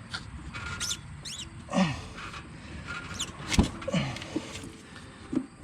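Rubber CVT drive belt squeaking and chirping against the clutch sheaves as it is worked on by hand, a series of short squeaks, some falling in pitch, with a few light clicks.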